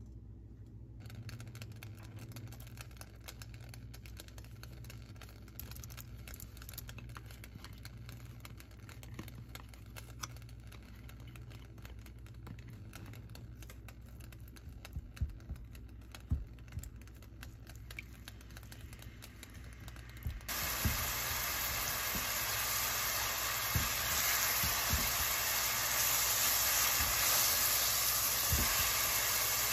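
Minced ginger and garlic frying in hot oil in a stainless steel pan: a faint crackling sizzle that jumps suddenly to a loud, steady hiss about two-thirds of the way through. A metal spoon scrapes and clicks against the pan now and then.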